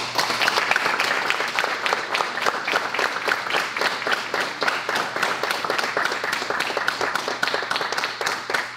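An audience applauding, the clapping starting abruptly and dying away near the end.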